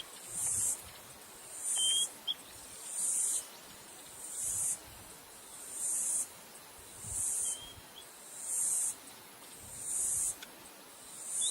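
A chorus of insects pulsing steadily, a high hiss that swells and fades about once every second and a half. A bird gives a short whistled note a few times.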